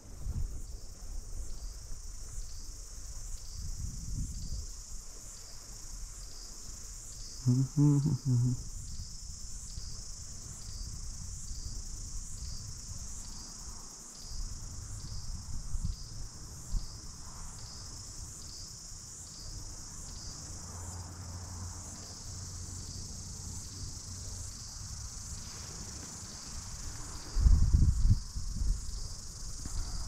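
Cicadas singing in a steady high-pitched chorus with a faint regular pulse, over a low background rumble; a short louder low sound comes about eight seconds in and again near the end.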